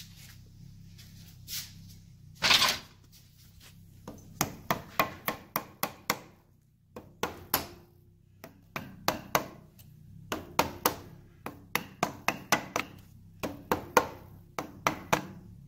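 Hammer tapping repeatedly on a wooden block held against a 1971 Triumph Tiger 650's clutch and primary chain assembly, driving the tight-fitting sprocket, chain and clutch hub set home. Sharp taps come a few a second in runs with brief pauses, after a single louder knock near the start.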